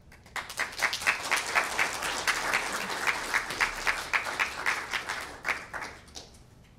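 Audience applauding. The clapping starts just after the opening, holds for several seconds, then thins out and fades away about six seconds in.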